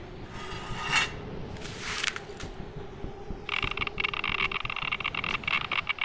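Sci-fi sound effects: a steady low hum with two short hissing swells in the first two seconds. From about three and a half seconds in, a handheld gauge gives a crackling electronic tone.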